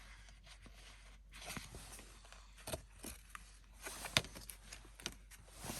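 Faint handling noises: scattered light clicks and rustles as a marker sticker is taken and pressed into place along a car door sill, the sharpest click about four seconds in.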